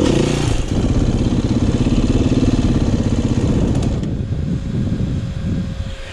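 Dirt bike engine running close to the bike-mounted camera, held on the throttle; about four seconds in it eases off to slower, uneven low running.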